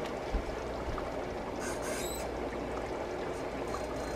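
A pan of gravy simmering at a gentle boil, a steady bubbling hiss, with a few faint clinks about halfway through.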